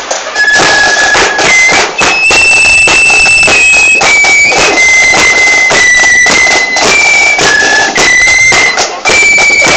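A band playing loudly: a shrill, high wind-instrument melody in held notes, changing about once a second, over constant heavy drumming.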